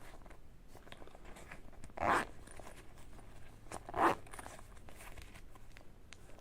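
Zipper on a small fabric pouch being drawn in two short pulls, about two seconds in and again about four seconds in, with faint handling noise between.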